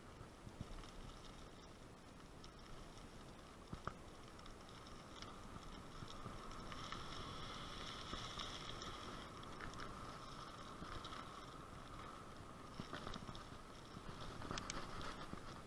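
Bicycle rolling along a rough, patched lane: steady tyre and road noise with small rattles and a sharp knock or two, plus a faint steady high tone, strongest in the middle.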